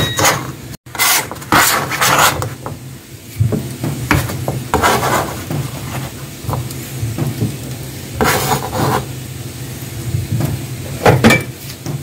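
Kitchen knife slicing through pickled dongchimi radish on a plastic cutting board: irregular crisp cuts and knocks of the blade on the board, with some scraping of the slices.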